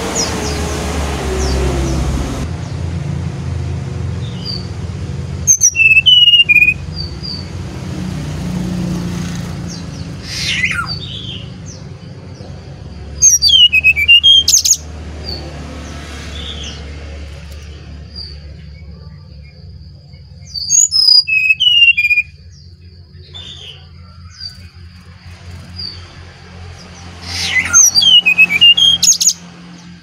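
Brown-chested jungle flycatcher (sikatan rimba dada coklat, Bali type) singing. There are four loud bursts of quick, high, rising and falling whistled notes, roughly every seven seconds, with softer notes between them. A thin steady high tone runs in the background from about the middle on.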